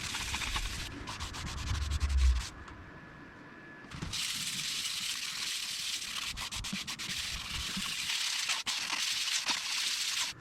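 Sandpaper rubbing against a spinning workpiece on a wood lathe: a steady hiss that drops away for about a second and a half near the start, then resumes.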